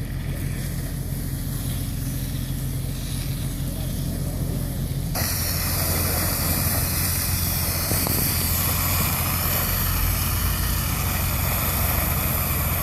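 Heavy truck engine running steadily. About five seconds in, a loud hiss sets in suddenly and carries on over it.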